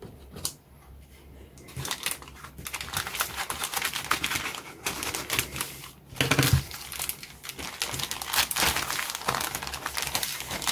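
Clear plastic packaging bag crinkling and crackling as hands peel it open, starting about two seconds in and going on densely, with a soft low thump a little past the middle.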